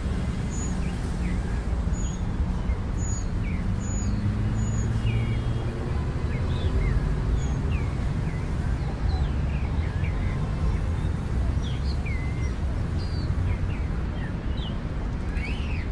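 Many small birds chirping, with short rising and falling calls scattered throughout and a quick run of high notes over the first few seconds, over a steady low background rumble.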